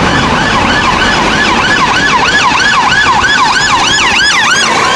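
Electronic emergency-vehicle siren in fast yelp mode, its pitch sweeping up and down about three times a second over a steady noisy background. A second, higher-pitched siren joins about three and a half seconds in.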